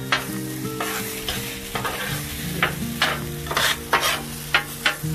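Metal spatula scraping and tapping on the steel top of a Blackstone griddle while chopping and scrambling eggs, about two strokes a second, over the steady sizzle of the eggs frying in bacon fat.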